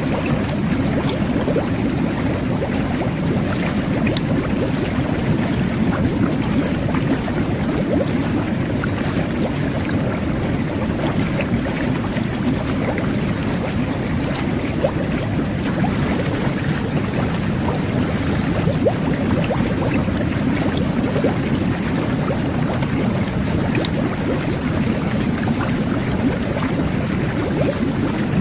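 Jet bath (whirlpool tub) running: water jets churning and bubbling underwater as a steady low rush with small pops and gurgles.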